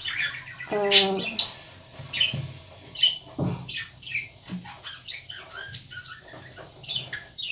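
Small birds chirping in short, scattered calls, with a brief louder pitched call about a second in followed by a sharp high note.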